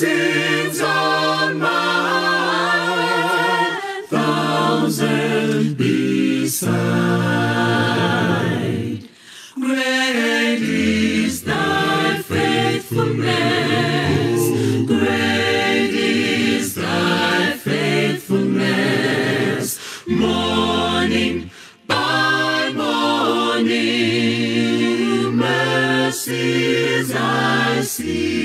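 An a cappella vocal group singing a hymn in harmony, several voices with no instruments. The singing goes in phrases, with short breaks about nine and twenty-two seconds in.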